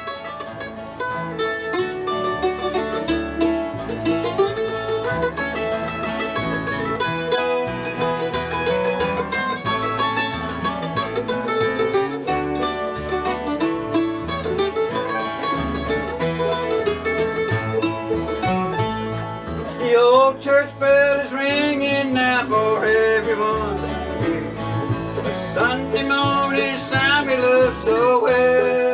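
Acoustic bluegrass jam band playing a gospel tune. A wavering, sliding lead line stands out about twenty seconds in and again near the end.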